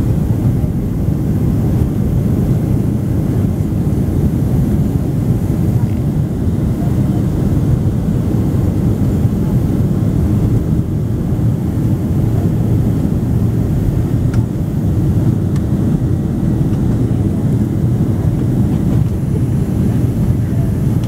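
Steady low rumble of a Boeing 767-300 in flight, heard inside the cabin by the wing: the turbofan engines and the rush of air over the fuselage.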